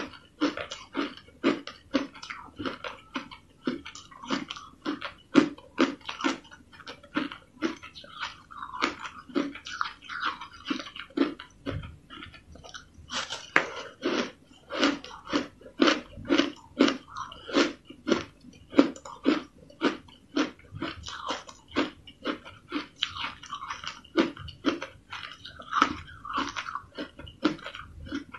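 Crushed ice being bitten and chewed close up, a steady run of crisp crunches about two to three a second.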